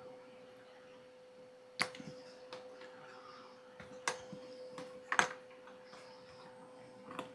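A few sharp clicks and knocks of parts and tools being handled while a motorcycle's air box is taken apart, the loudest a double knock about five seconds in, over a faint steady hum.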